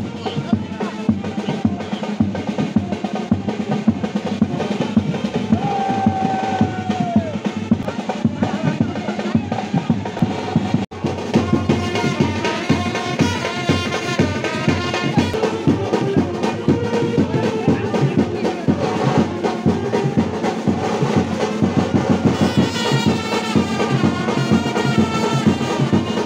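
Music with fast, dense drumming, broken off for an instant about eleven seconds in.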